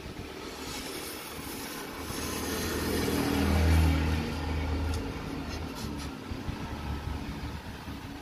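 Motorcycle roller chain clinking as the new chain, joined to the old one, is pulled through over the rear sprocket. A vehicle engine passes by, swelling to its loudest about four seconds in and then fading.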